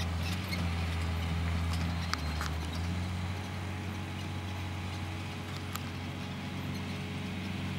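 A harnessed pony trotting on sand and pulling a four-wheeled carriage: soft hoofbeats and scattered clicks and rattles from the carriage, over a steady low hum.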